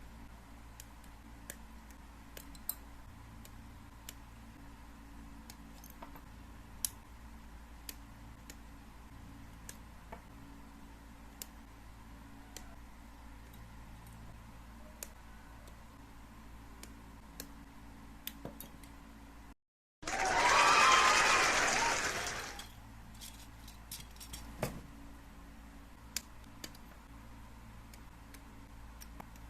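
Scattered light clicks and snaps of plastic model-kit parts being handled and fitted together, over a low steady hum. About twenty seconds in the sound drops out for a moment, then a loud rushing noise lasts about two seconds before the clicks resume.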